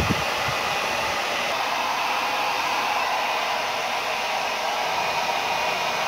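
Philips hand-held hair dryer running steadily, its fan blowing a smooth rush of air. The fan, which had not been turning, now runs after the repair. There is a brief low thump right at the start.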